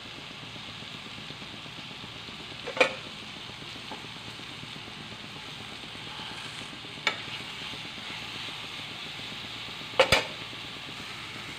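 Raw mango pieces, tomatoes and green chillies sizzling steadily in a pan on the stove. A spatula stirs them, knocking against the pan three times.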